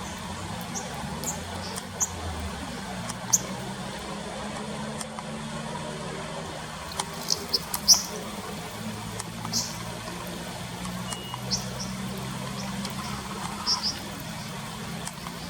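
Stream water running steadily, with many short, sharp high bird chirps at irregular intervals, the loudest near the middle. A faint low engine hum runs underneath.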